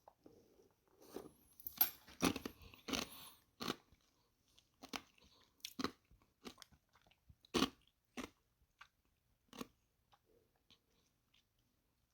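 A string of short, irregularly spaced crunching clicks, about ten of them, growing sparse and faint near the end.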